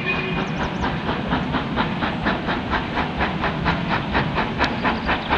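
Steam locomotive chuffing as it approaches: even exhaust beats about four a second, getting louder.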